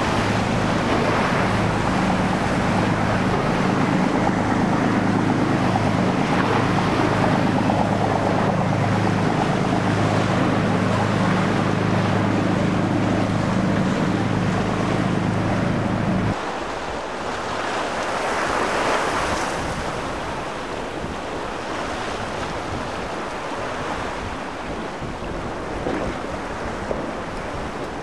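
A large drift-fishing boat's engines running with a steady low drone under churning surf and wind buffeting the microphone. The drone cuts off abruptly a little past halfway, leaving the rush of waves and wind.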